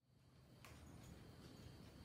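Near silence: faint room tone, with one faint click.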